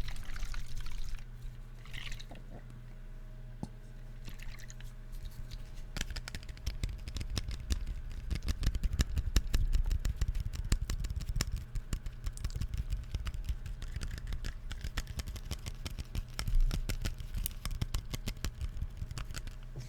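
Close-miked ASMR mouth sounds: wet clicks and smacks, sparse at first and then in a dense, continuous crackle from about six seconds in, over a steady low hum.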